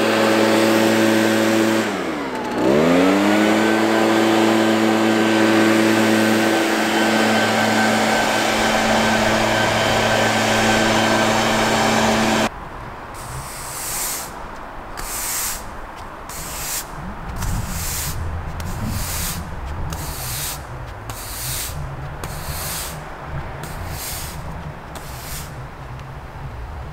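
ECHO backpack leaf blower's two-stroke engine running at high speed, its pitch briefly sagging and recovering a couple of seconds in, then cutting off abruptly. It is followed by quieter, regular swishing strokes about once a second.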